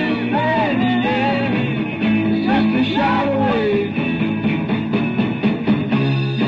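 Rock band playing, with a voice singing a melody line over guitar and rhythm. The singing stops a little before the halfway point and the band plays on. The recording sounds muffled, with no high treble.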